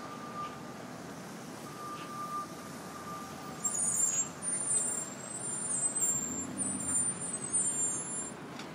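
Street traffic with a heavy vehicle's brakes squealing, very high-pitched and uneven, for about five seconds starting a little over three seconds in. A fainter high tone sounds on and off before the squeal.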